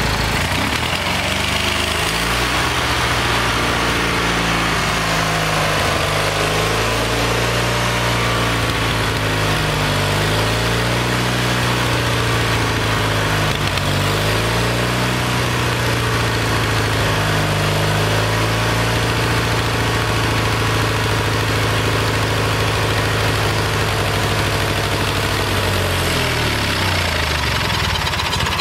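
Kohler Magnum 20 small engine running fast with a freshly rebuilt carburetor, its speed dipping and recovering several times as the mixture screw is turned. It runs unevenly, which is put down not to the carburetor but probably to low compression from valves that need a valve job.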